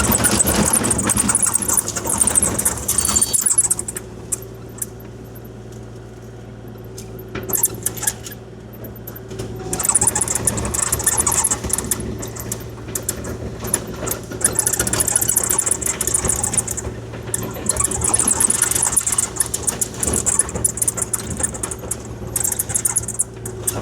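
Kubota KX040-4 mini excavator's diesel engine running steadily under hydraulic work, with a high hiss and scraping that drops away for several seconds after about 3.5 s and comes back about 10 s in.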